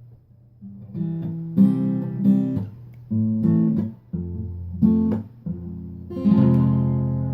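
Acoustic guitar strummed in a slow rhythm, a series of chords that ring on between strokes, with a longer held chord near the end.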